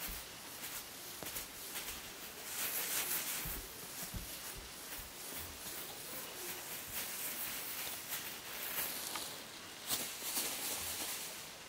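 Soft rustling and crinkling of a foil-tinsel wand toy swept across a fabric bed cover and batted by two exotic shorthair kittens' paws, in many short irregular crackles.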